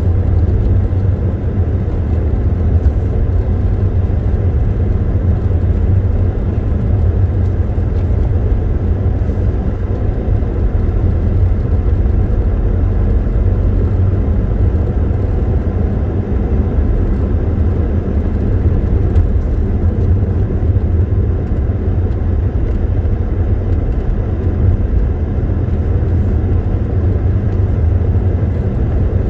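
A car driving steadily along a road: an even, low road-and-engine noise that holds constant with no changes in speed or gear.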